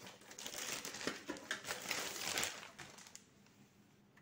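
Thin plastic wrapping bag crinkling and rustling as a network video recorder is pulled out of it, with a few small clicks; it stops about three seconds in.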